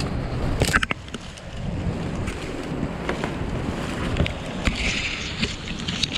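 Branches and dry leaves rustling, cracking and scraping against a helmet camera as a kayaker scrambles down through rhododendron thicket, over a steady rumble of whitewater and wind on the microphone.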